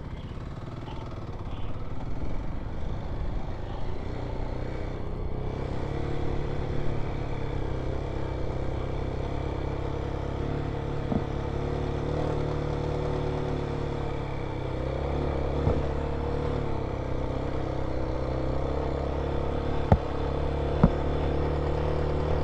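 Single-cylinder Kawasaki KLX dual-sport motorcycle engine pulling steadily in first gear up a steep, rocky mountain track, its note holding nearly constant. A few sharp knocks stand out, the loudest two near the end.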